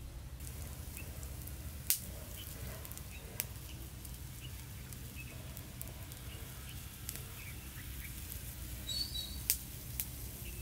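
Wood fire under a grill crackling, with a few sharp pops, over a steady low rumble. Faint short bird chirps come and go.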